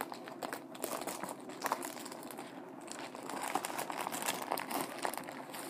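A sandwich wrapper crinkling and crumpling as it is handled and folded around the sandwich: a dense, continuous run of small crackles.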